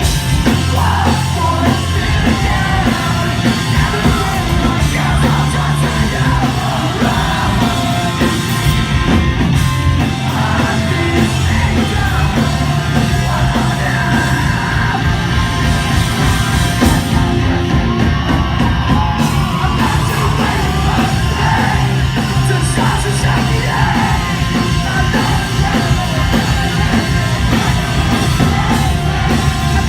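Live punk rock band playing a song at full volume, with a yelled and sung lead vocal over dense, continuous guitars and drums.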